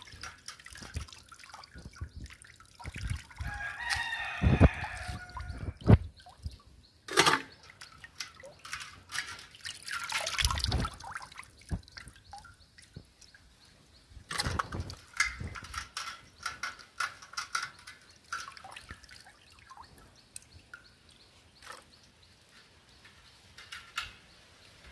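Water splashing and sloshing in a steel bowl as hands rub and rinse cut catla fish pieces, with wet pieces set into a second steel pot. A chicken calls in the background a few seconds in.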